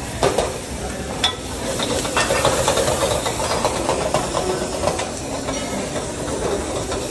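Vegetables sizzling in a wok over a high gas flame while a metal ladle and spatula stir and toss them, the utensils clanking sharply against the wok a few times in the first couple of seconds.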